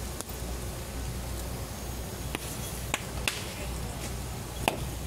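Large fire consuming a wooden ceremonial king boat (wang chuan) on a burning pyre: a steady rush of flame noise with sharp crackles and pops, the loudest about three seconds in and near the end.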